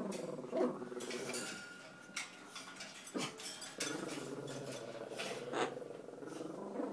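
A pet growling low and steadily, with a few short sharp sounds cutting in.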